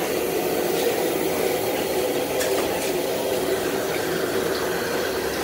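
Steady hissing roar of a gas stove burner, with a few faint clicks.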